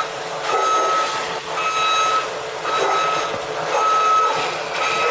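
A truck's reverse alarm beeping steadily, a single-pitched beep about once a second, five times.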